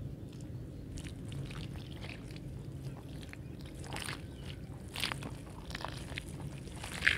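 Water poured in a thin stream onto dry, crunchy red dirt balls and loose red dirt, with scattered soft crackles and crunches as the dry dirt soaks and starts to crumble; the sharpest crack comes just before the end.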